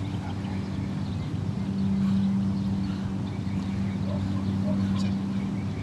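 Steady low mechanical hum at a fixed pitch.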